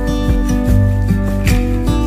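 Background pop music with strummed acoustic guitar between sung lines.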